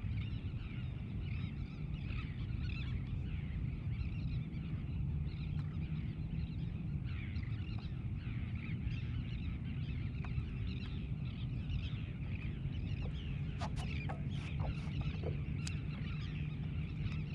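Many distant birds calling in short chirps and calls, over a steady low rumble. A few sharp clicks come near the end.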